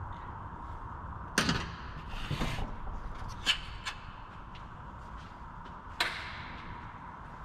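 Clunks, clicks and a short scrape of tools and chainsaw parts being handled on a workbench. The loudest knocks come about a second and a half in and about six seconds in, over a steady faint hum.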